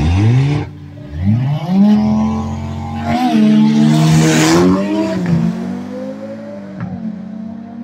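A red Audi and a white Audi TT launching off a drag-strip start line. The engines rev, then climb in pitch through the gears with shifts about three and five seconds in, and fade as the cars pull away down the strip.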